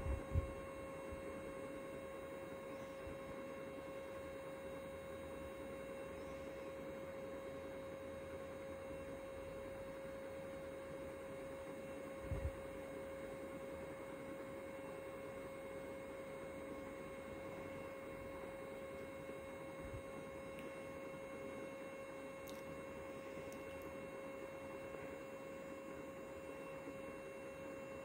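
NEMA 17 stepper motors slewing a telescope's equatorial mount under GoTo control through 16:64 belt pulleys, giving a steady high whine with overtones. A soft low thump comes just after the start and another about twelve seconds in.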